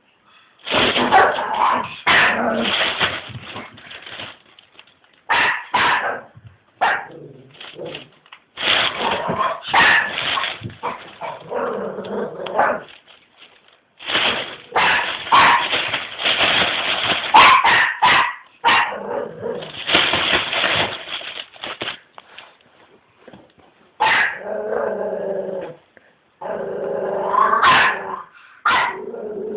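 Pomeranian puppy barking and growling in repeated bouts, frightened by a trash bin being moved near it; near the end the sounds turn into wavering, whining, pitched cries.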